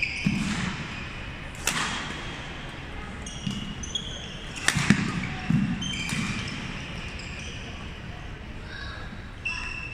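Badminton rally: sharp racket strikes on the shuttlecock, one about a second and a half in and another near five seconds, among squeaks and thuds of court shoes on the hardwood floor.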